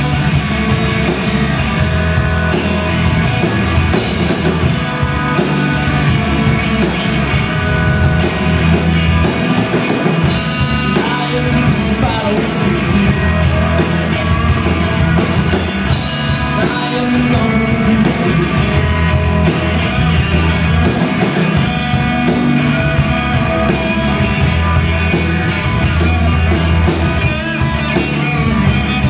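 Live blues-rock trio playing loudly: electric guitar, electric bass and drum kit, with drums keeping a steady beat.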